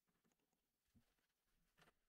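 Near silence: room tone, with two faint taps, about a second in and near the end.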